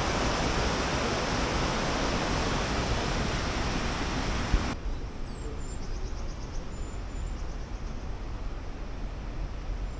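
Water rushing over a mill weir, a steady loud roar that cuts off abruptly about halfway through. After that comes a quieter outdoor ambience: a low rumble with a few faint high chirps.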